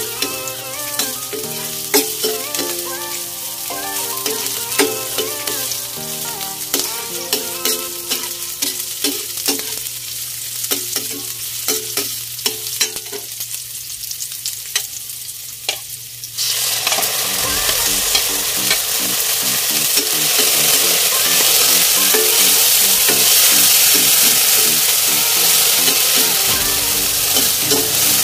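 A metal ladle clinks and scrapes around a stainless steel frying pan while garlic, onion and ginger sauté in oil with a light sizzle. A bit past halfway, frozen chopped tomatoes hit the hot oil and a much louder, steady sizzle takes over.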